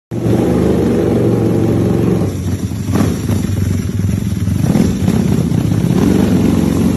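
Ducati V4 R superbike's V4 engine running as the bike rolls slowly, its note dropping a little about two seconds in, with brief throttle swells about three and five seconds in.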